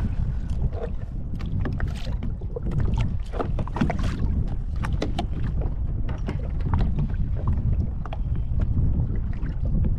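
Wind buffeting the microphone on a kayak at sea, a steady low rumble, with water lapping against the hull and many scattered small clicks and knocks.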